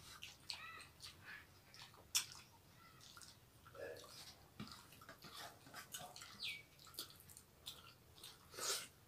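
Two people eating rice and curry with their hands: faint wet chewing and lip smacks, and fingers mixing rice on steel plates, as scattered short clicks with a sharp one about two seconds in.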